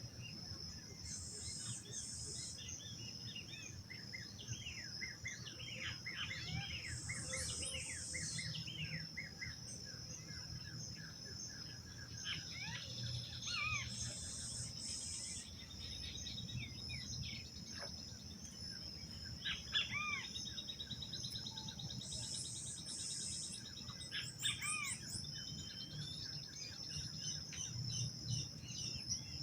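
Dawn chorus of many birds chirping and calling over a steady high insect drone, with a higher insect buzz coming in four times for a second or two.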